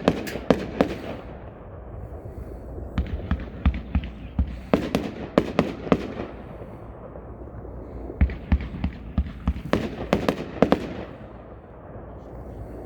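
A Magnus 'Desert Rose' 500-gram, 25-shot fan cake firing: sharp bangs come in quick clusters, about four volleys a few seconds apart, with quieter gaps between.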